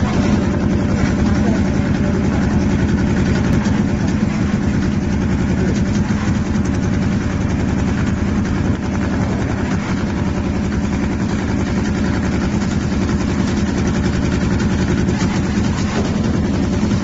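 CNC automatic hole-punching machine running, its punch heads striking the sheet in a fast, steady rattle over a low machine drone.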